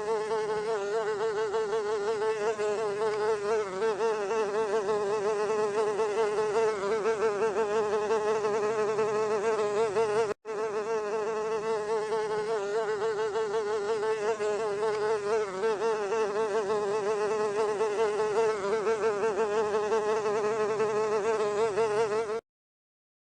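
Mosquito buzzing: a steady, high whine whose pitch wavers constantly. It cuts out for an instant about ten seconds in and stops near the end.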